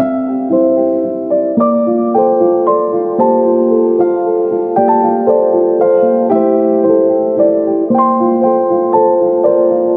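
Background music: a slow piano melody of struck notes and chords, a new note every half second or so.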